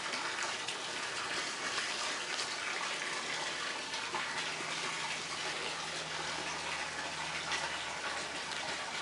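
Steady rushing noise of running water, even throughout, with a faint low hum joining from about four to eight seconds in.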